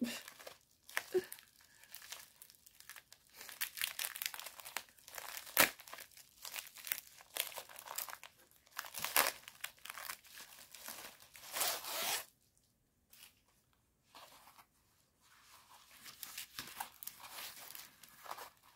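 Plastic packaging being torn open and crinkled by hand: irregular crackling and rustling with sharp snaps, the sharpest about a third of the way in, and a short quieter lull past the middle.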